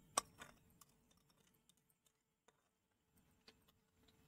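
Near silence, broken by a sharp click just after the start and a softer one right after it, then a couple of faint ticks.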